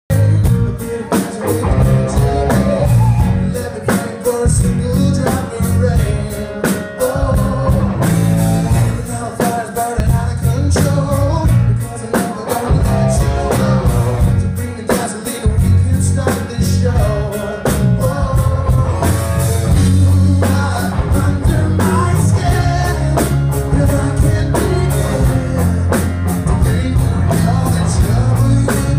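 Live rock song recorded from the audience: a male singer with an acoustic guitar over a band with a steady beat and heavy bass.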